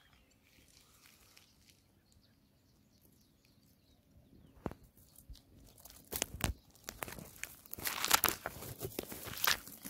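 Dry grass stems and twigs crackling and rustling close to the microphone as they are pushed aside, starting about halfway through with sharp, irregular crackles that grow denser and louder near the end.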